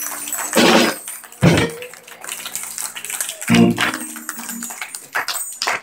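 The end of a live musical number: a held chord rings and then stops, with three loud thumps and a few scattered knocks.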